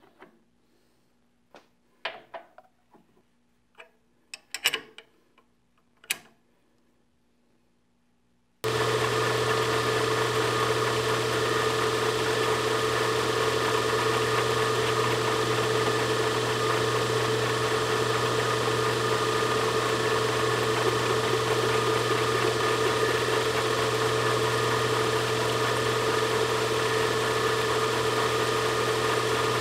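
A few light clicks and knocks as the workpiece is handled, then about eight seconds in an Atlas horizontal mill comes in abruptly and runs steadily, its end mill cutting a flat on the drawbar. Its motor keeps up an even hum.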